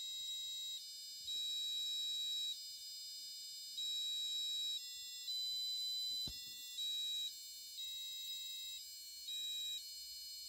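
Grove buzzer module on an Arduino-based kit playing a programmed tune of high-pitched electronic beeps, the pitch stepping from note to note with each note held for about a quarter second to a second.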